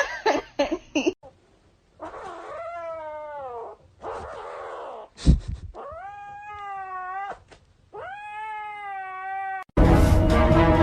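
A cat yowling in three long, drawn-out calls, the first one falling in pitch. There is a sharp knock between the first and second calls, and music cuts in near the end.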